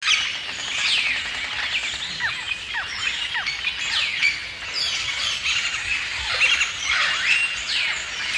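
Many birds calling at once: a dense chorus of overlapping squawks and chirps, short calls sweeping up and down in pitch.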